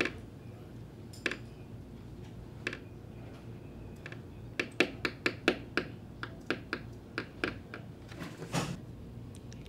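A wooden pencil tapped on a tabletop: a few scattered taps, then a quicker run of taps about halfway through, and a longer, noisier knock near the end.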